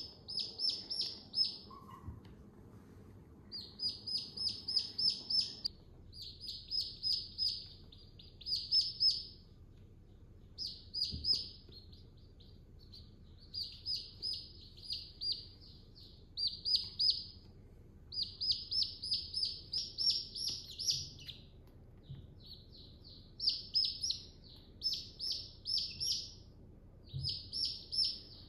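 Chicks peeping: runs of quick, high peeps, several in a row, with short pauses between the runs.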